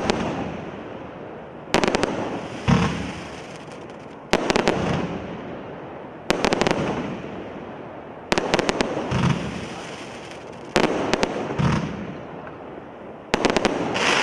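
Absolute Fireworks 'Showcase' (AF0567) firework barrage firing volley after volley: each volley is a quick cluster of sharp bangs followed by a fading crackle from the bursting stars, one every couple of seconds. A last volley goes off near the end.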